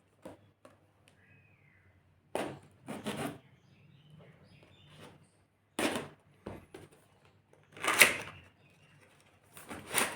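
Keyboard packaging being handled and opened by hand: several short, separate bursts of rustling and scraping, the loudest about eight seconds in, with quiet in between.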